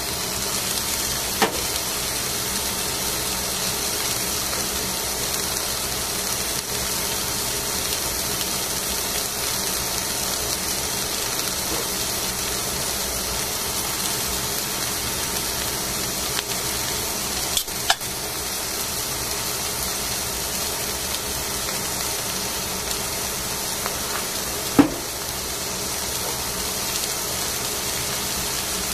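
Steady hissing from the grill as two fish fillets begin to cook on aluminium foil. It is broken by a few short sharp clicks: one near the start, one a little past halfway, and the loudest near the end.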